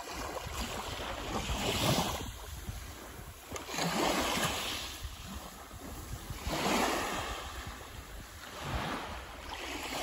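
Small sea waves washing up onto a fine-pebble beach and drawing back, swelling and fading four times, about every two seconds.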